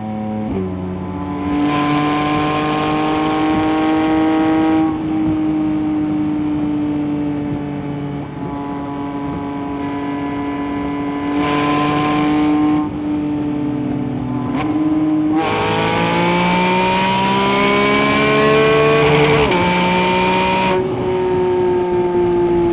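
Porsche 992 GT3's flat-six engine running at high revs. Its pitch climbs steadily under acceleration and drops sharply at gear changes, with a sudden drop about 15 s in and another about 19.5 s in. Three stretches of harsher, louder full-throttle rasp come at about 2–5 s, 11–13 s and 15–21 s.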